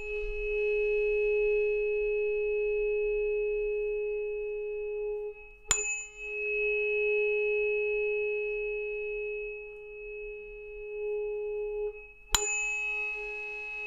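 A struck bell with a low, pulsing hum, rung once at the start, again about 6 s in and again near the end; each strike rings on for several seconds with a shimmer of higher overtones.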